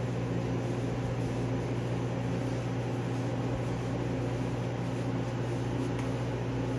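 Commercial kitchen exhaust hood fan running with a steady low hum under a rush of air.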